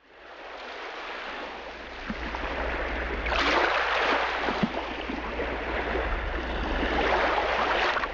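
Water rushing and splashing along a moving boat's hull, fading in at the start and surging louder twice, over a steady low rumble.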